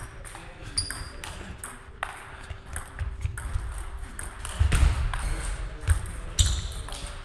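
Table tennis rally: the ball clicking off the bats and the table in quick, uneven succession, ringing a little in a large hall.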